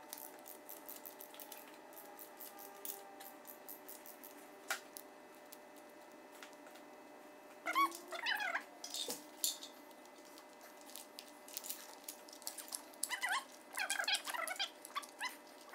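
Small clicks and taps of parts being handled on an engine's cylinder head, with short high squeaks that bend in pitch about eight seconds in and again over the last few seconds.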